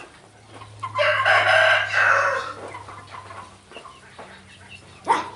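A rooster crowing once: one long call starting about a second in and lasting about a second and a half. A short sharp sound near the end.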